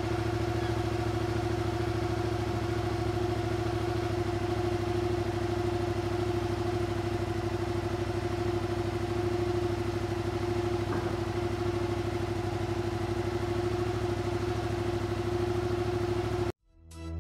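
Yamaha MT-07 (2018-on) motorcycle's 689 cc parallel-twin engine idling steadily through its exhaust. The sound cuts off abruptly near the end.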